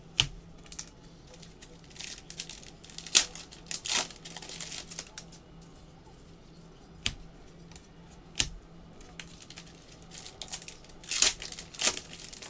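Trading cards being handled by hand: scattered sharp taps and clicks as cards are flicked through and set down, with short stretches of rustling and crinkling. The loudest taps come about three to four seconds in and again near the end.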